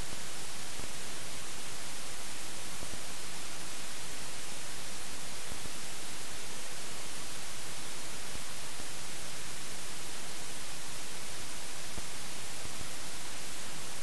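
Steady, even electronic hiss and static with nothing else in it. It is the noise of a helmet camera whose audio recording failed.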